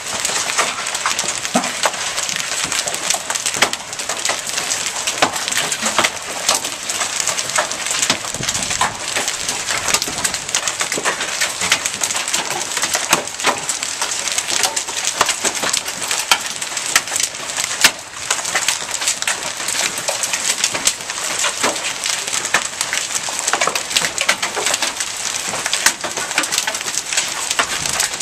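Rain and hail coming down, a steady hiss dotted with many sharp clicks of stones and drops striking.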